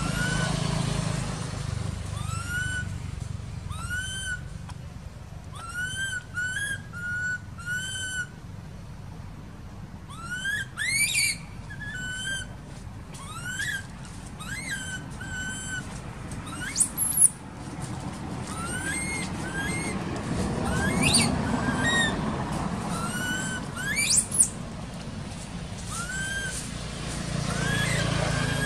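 A baby macaque crying with short, whistly, rising-and-falling whimpers, repeated every second or two, with a few louder, higher-pitched squeals among them, over a low steady background rumble.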